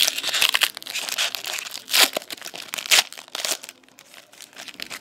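Foil wrapper of a Panini Select hockey card pack crinkling and tearing as it is opened and the cards are pulled out. It makes a dense crackle, with two louder crinkles about two and three seconds in, then goes quieter near the end.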